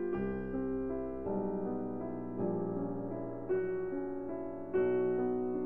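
Slow, gentle piano music, with held notes and chords changing about once a second.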